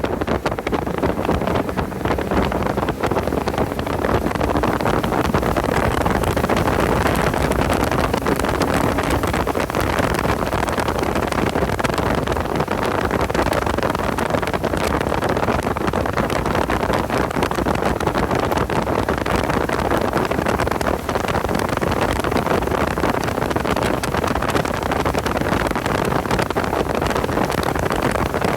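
Porsche 986 Boxster's flat-six engine running hard at track speed, mixed with heavy wind and road noise on the microphone; a brief dip in level about two-thirds of the way through.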